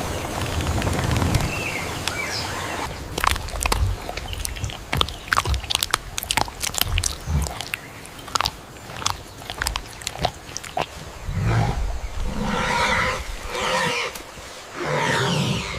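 Wild animal sounds: a run of sharp clicks and cracks, then several short, harsh pitched calls in the last few seconds.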